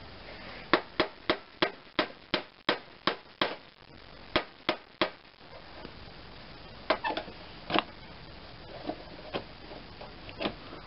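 Hammer tapping on the bent metal hood edge of a Craftsman lawn tractor, knocking it back into shape. About a dozen quick sharp strikes, roughly three a second, then a few more after a pause and some lighter taps near the end.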